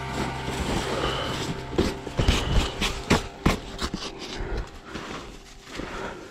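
Wet, heavy snow being scraped and brushed by hand off a fabric motorcycle cover, with uneven crunches and scuffs and the cover rustling. The strokes come thickest a couple of seconds in.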